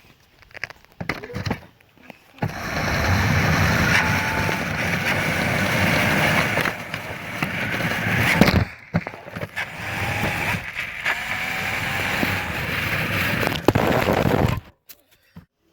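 RC car driving over hard ground: a steady rolling rattle of the wheels with a faint whine, running about twelve seconds with a brief break about eight and a half seconds in.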